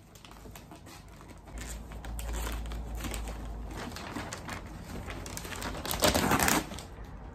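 Wrapping paper being torn and crinkled as a gift is unwrapped, with a loud burst of ripping and rustling about six seconds in as the paper is pulled off a cardboard box.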